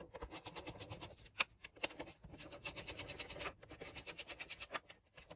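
Sped-up sound of hand tools undoing bolts on a lawnmower's cover: a dense, fast run of clicks and scrapes, with a few louder ticks.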